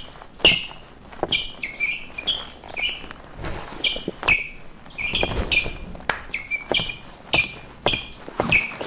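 An irregular run of short, sharp clicks and knocks, two or three a second.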